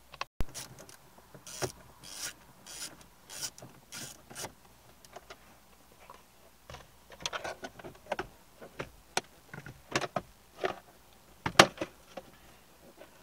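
Plastic clicks, knocks and scrapes of a Vauxhall Corsa D glovebox being worked loose and pulled out of the dashboard, irregular throughout, with the loudest knock near the end.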